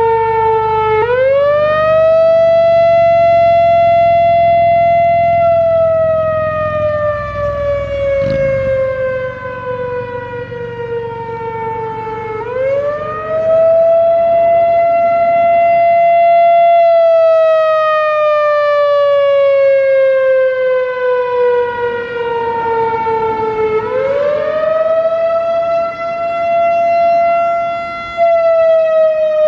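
Analog Whelen WPS-4004 electronic outdoor warning siren sounding a wailing Attack signal. The tone rises quickly, holds for about four seconds, then slides slowly down for about seven seconds before rising again, three times in all.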